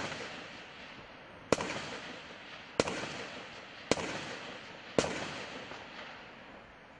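Four gunshots a little over a second apart, each a sharp crack that echoes and dies away. The tail of a shot fired just before fades at the start.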